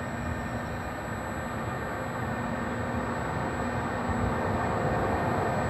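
FS E.402B electric locomotive approaching, its running noise growing steadily louder over a steady electrical hum.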